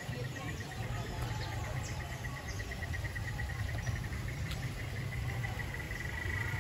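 An insect trilling at a single high pitch in a rapid, even pulse, over a low rumble.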